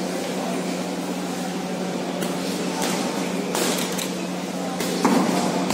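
Hall noise during a boxing bout: a murmur of voices over a steady low hum, with a few sharp smacks of gloved punches landing, starting about two seconds in and loudest near the end.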